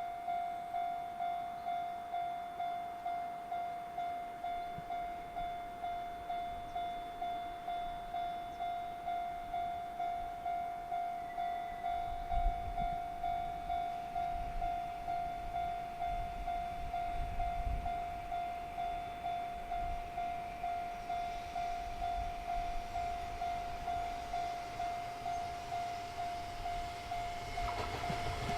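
Japanese level-crossing warning bell ringing with an even electronic clang, about one and a half strikes a second, signalling an approaching train. A low rumble builds beneath it from midway, and the noise of the train arriving rises sharply near the end.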